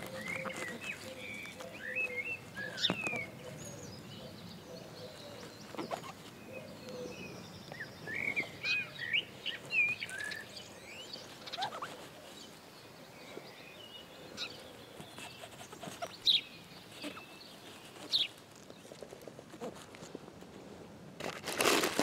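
A knife cutting through chanterelle stems, giving short squeaks like a knife through rubber or rubber on glass, in two or three clusters, with small clicks and rustling of pine-needle litter. A loud rustle of handling comes at the very end.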